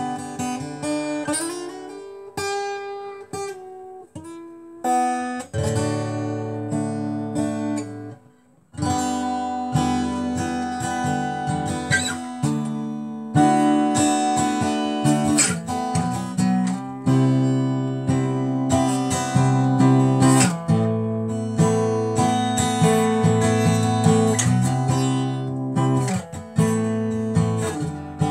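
Acoustic guitar strummed and picked through a run of chords, with no singing. The playing stops briefly about eight seconds in, then resumes.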